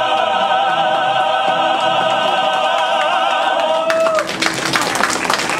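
Mixed choir holding a final chord with vibrato, which cuts off about four seconds in; the audience then breaks into applause.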